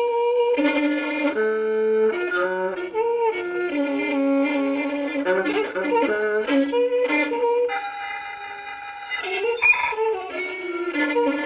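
Violin prepared with blobs of Blu Tack on its strings, played as a run of short changing notes with one longer held note about two-thirds of the way through. The Blu Tack makes it sound very different from a normal violin.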